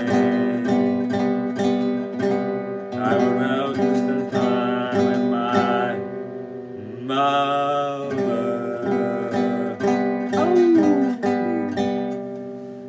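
Acoustic guitar strummed in steady chords as the song's closing outro, with a short held vocal note partway through; the last chord rings out and fades near the end.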